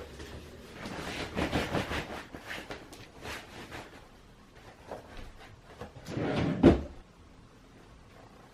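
Indoor handling noises: a run of light knocks and rustles, then a louder bang about six and a half seconds in, like a cupboard door shutting.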